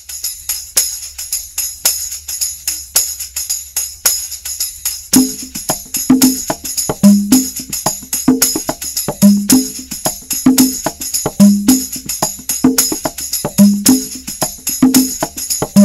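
Instrumental opening of a Tamil devotional song: jingling hand percussion shaken in a quick, even rhythm, joined about five seconds in by a low drum beat.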